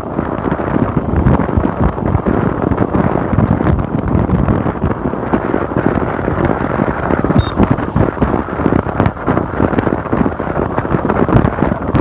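Wind buffeting the microphone: a loud, uneven rushing rumble that gusts throughout.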